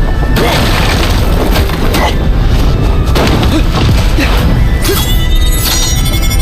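Soundtrack music over a loud, continuous low rumble with repeated booming and crashing impacts, like an action or battle sequence's sound effects.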